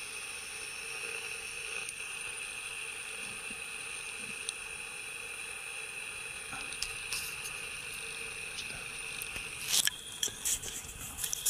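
Steady high-pitched insect chorus, a constant shrill drone with two pitches. A few sharp knocks and clicks near the end.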